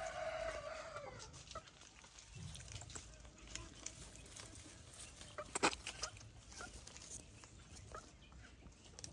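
A rooster crowing, the drawn-out final note of its crow fading out in the first second or so. A sharp click about five and a half seconds in is the loudest moment, with a few fainter clicks around it.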